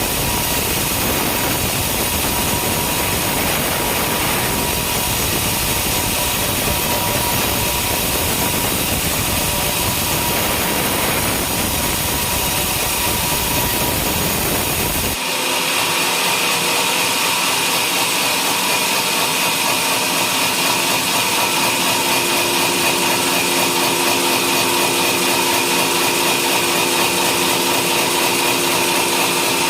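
Home-made sawmill running and sawing through a coconut-palm log, a loud steady mechanical noise. About halfway through, the sound changes abruptly: the low rumble drops out and a steadier whine remains.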